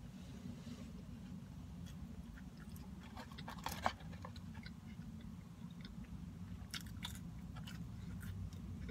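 A person chewing a mouthful of burger close to the microphone, with small wet mouth clicks and one sharper, louder click about four seconds in. A steady low hum runs underneath.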